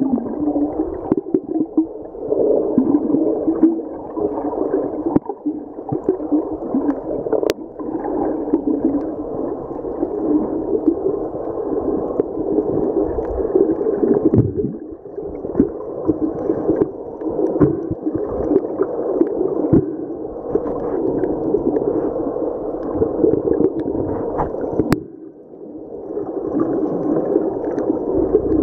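Muffled underwater noise of water moving and gurgling around a camera's waterproof housing, uneven and rising and falling, with a couple of faint clicks.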